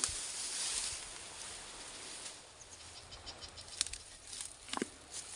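Grass and thin bamboo sticks rustling as they are handled and pushed through the vegetation, with a couple of sharp clicks of the sticks knocking near the end.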